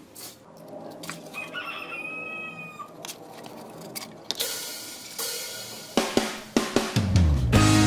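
A rooster crows once, about two seconds in. A run of sharp clicks and noisy hits follows, and background music with a guitar comes in near the end.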